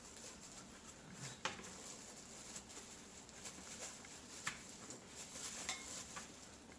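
Faint kitchen handling sounds while food is prepared, with a few light clicks and taps from utensils or dishes, three of them clearer than the rest.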